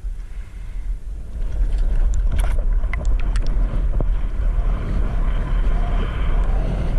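Wind buffeting the microphone with a heavy, steady low rumble, over water noise. A cluster of short sharp ticks, like water splashes, comes about two to three seconds in.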